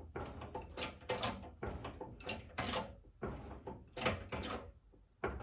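Irregular creaks and clunks, roughly every half second, as the body of a 1970 Chevrolet Impala is jacked up off its frame and the rear springs unload.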